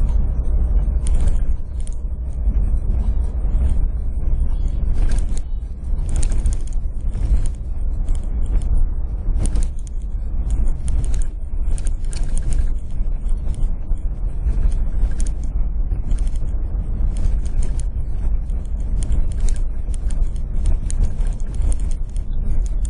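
Car driving over a sandy dirt track, heard from inside the cabin: a steady heavy low rumble of engine and tyres, with frequent irregular rattles and knocks as the car jolts over the rough surface.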